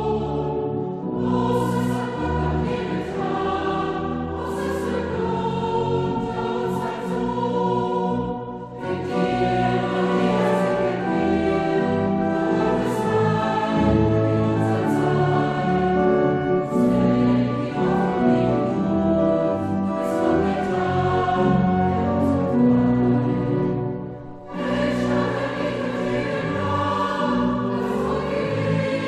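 Mixed church choir singing a German Marian hymn with pipe organ accompaniment. The singing breaks off briefly between phrases about 9 and 24 seconds in.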